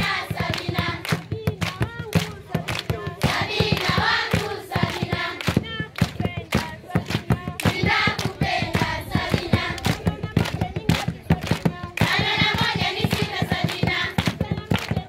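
A group of children singing together, keeping time with steady rhythmic hand clapping.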